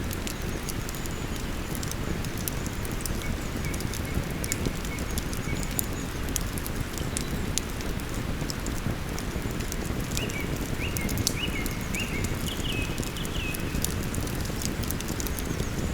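Wood campfire crackling with many small sharp pops over the steady rush of a river. A bird whistles a thin, high note from about three to six seconds in, then a short run of higher stepped whistled notes from about ten to thirteen seconds in.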